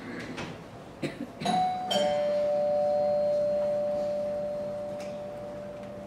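Two-note ding-dong doorbell chime. A higher note is followed half a second later by a lower one, and both ring on and slowly fade over about four seconds.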